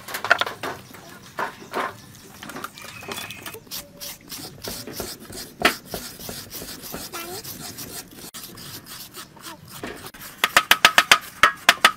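A wooden-handled metal shredder scraping raw pumpkin flesh into strands inside a halved pumpkin: scattered scrapes and knocks, then a quick run of about a dozen strokes, roughly seven a second, near the end.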